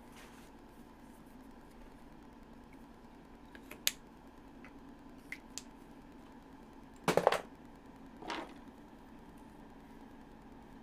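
Small objects being handled on a desk: a few light clicks, then a short clatter of quick clicks about seven seconds in and a softer rustle a second later, over a steady low hum.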